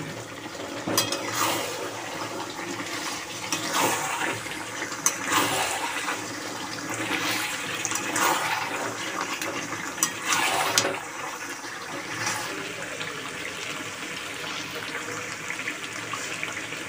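Chicken curry sizzling and bubbling in a kadai as the masala is braised, with a spatula sweeping and scraping through the pan every second or two.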